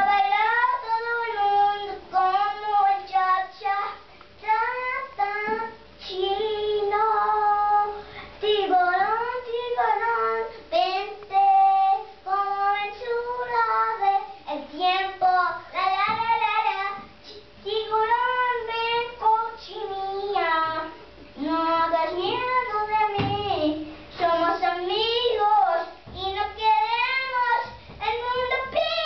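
A young boy singing a song in Spanish, unaccompanied, in phrases with short pauses between them, in a tiled bathroom.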